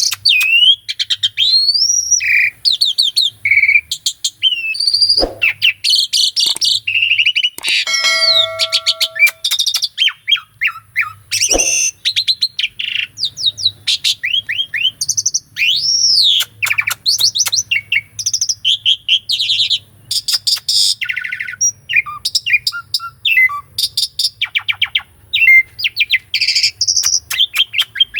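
Asian pied starling (jalak suren) singing a long, varied song of whistled up-and-down glides and fast rattling runs of repeated notes. Two sharp clicks cut in, at about five and eleven seconds.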